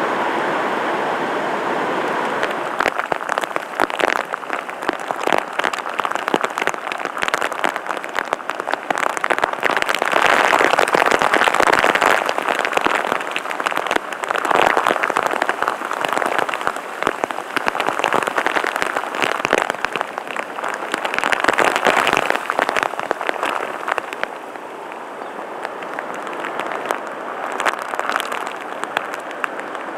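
Heavy rain falling into shallow floodwater on a street, a dense, continuous patter of drops striking the water. It begins as a smoother hiss for the first couple of seconds and eases off somewhat about three-quarters of the way through.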